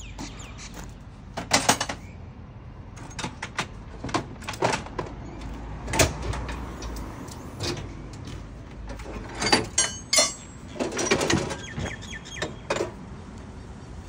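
Tools and fittings in a ute's canopy toolbox being handled: a string of sharp metal knocks, clanks and rattles as a hand tool is dug out.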